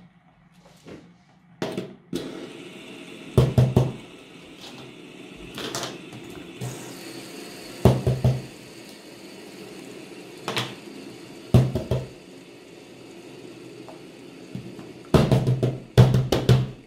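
Plastic fidget toys (pop-its and fidget spinners) set down one at a time on a tabletop: a series of sharp knocks at irregular intervals, several in quick succession near the end, over a faint steady background sound.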